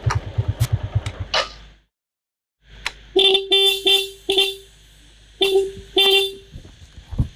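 Small motorbike engine running for about the first second and a half, then stopping. Then its horn toots in a quick run of four or five short beeps, followed by two more after a short pause.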